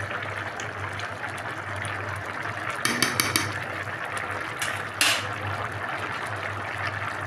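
Rice cooking in chicken stock in a metal pot, the liquid bubbling steadily. A quick run of metal clinks comes about three seconds in, and one louder clank of utensil on the pot about five seconds in.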